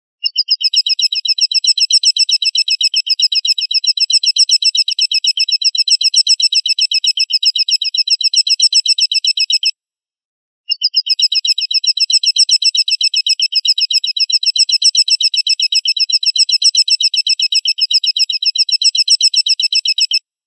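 Recorded call of an elang, a bird of prey: a rapid, high chattering trill of many evenly spaced notes, in two long runs of about ten seconds each with a short break near the middle.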